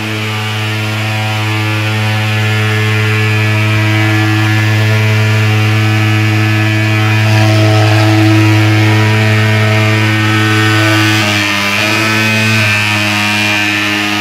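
Handheld thermal fogging machine, its pulse-jet engine running with a loud, steady buzzing drone as it pours out dense white fog; the pitch wavers briefly about two-thirds through.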